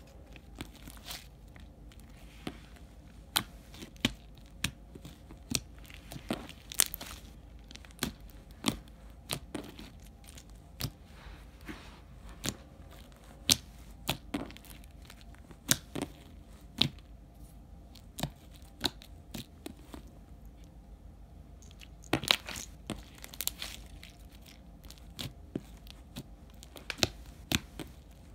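Hands squishing, stretching and pressing soft slime with foam beads, giving irregular sharp pops and clicks, one to three a second, with a thicker flurry about two-thirds of the way through.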